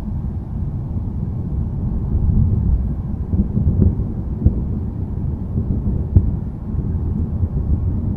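Distant thunder rumbling low and continuously, swelling and easing, with a few sharp cracks near the middle.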